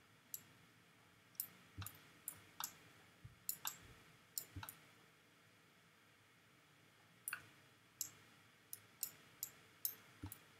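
Computer mouse buttons clicking: scattered short, sharp clicks, some in quick pairs, in two clusters with a gap of about two and a half seconds between them.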